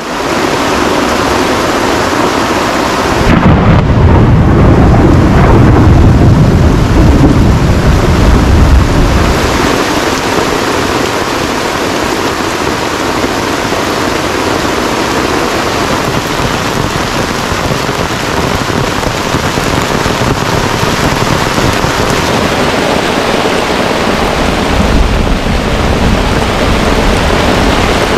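Heavy rain pouring steadily, with a long low rumble of thunder starting about three seconds in and rolling on for several seconds, and a weaker rumble near the end.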